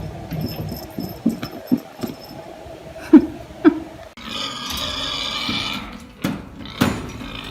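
Pet animal vocalising: scattered short sounds, then two sharp loud calls about three seconds in, followed by a longer held call.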